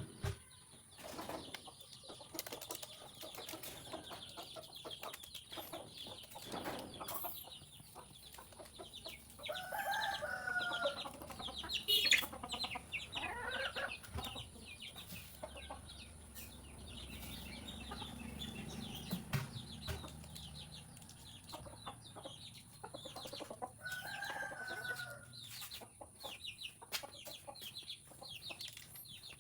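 Two pet parrots scuffling, with wings flapping and many short clicks and scrapes from beaks and claws, and rapid chattering. Two harsh squawks come through, about ten seconds in and again about twenty-five seconds in.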